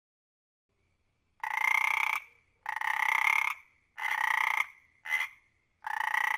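Frog calling: five croaks starting about a second and a half in, each lasting under a second, with the fourth one short.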